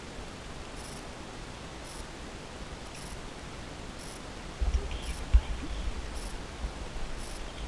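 Steady hiss of background noise, with faint high ticks about once a second. Just past halfway the camera is moved, and handling on the microphone gives low bumps and rumbling, with one sharp knock.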